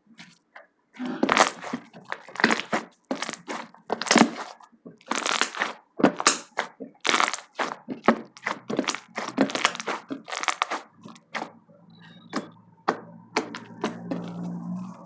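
Slime being squeezed and pressed by hand, giving a quick, irregular run of loud crackling and popping.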